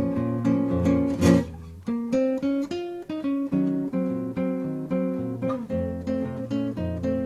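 Acoustic guitar music: single picked notes in a steady rhythm, with one loud strummed chord about a second in, then the picking resumes.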